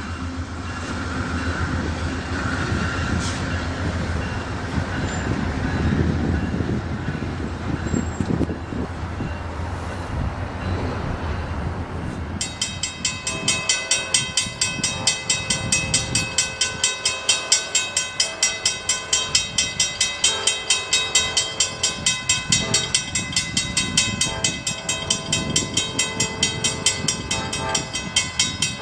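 Amtrak Silver Star passenger train running with a low rumble. About twelve seconds in, a railroad crossing-signal bell starts ringing rapidly and evenly, about two to three strikes a second.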